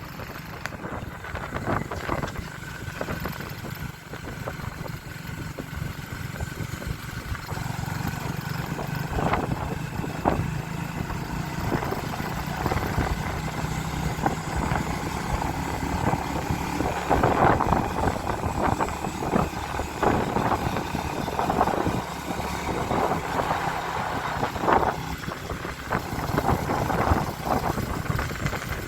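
Motorcycle engine running steadily at low revs while riding, with a rushing noise over it and scattered short knocks.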